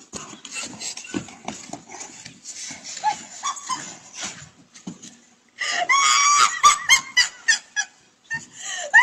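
A large dog growling and scuffling on a wooden deck in a tug-of-war. A little over halfway through, a woman breaks into loud, high-pitched shrieking laughter in repeated bursts.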